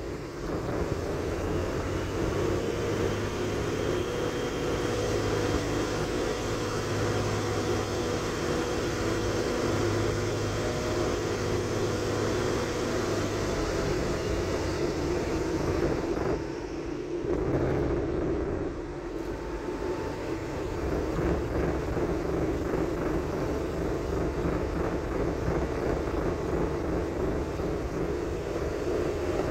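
Steady running noise inside a moving commuter train carriage: a continuous rumble with a low hum, easing briefly a little past the middle before picking up again.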